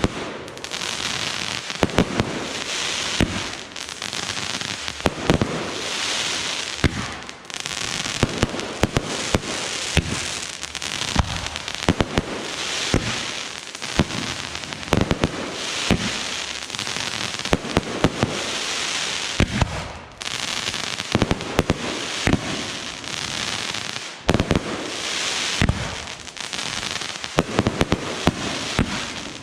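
Fireworks display going off: a continuing run of sharp bangs from bursting shells at uneven intervals, with stretches of dense crackling and hissing between them.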